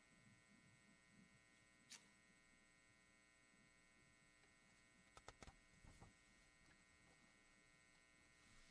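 Near silence: a faint, steady electrical hum, with a few soft clicks about two seconds in and again around five to six seconds in.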